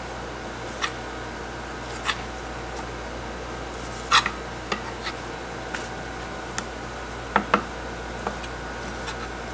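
Sharp, scattered clicks and taps of a butcher's knife striking bone and the cutting board as meat is cut from between beef rib bones, about ten strikes, the loudest about four seconds in. A steady hum runs underneath.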